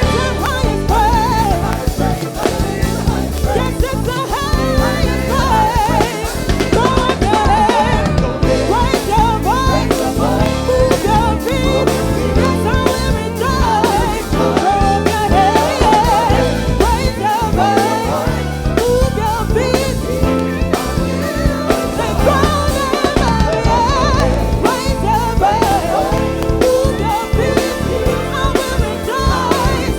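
Gospel praise-and-worship song played live: singing over a drum kit and band, with busy kit and snare strokes under the melody.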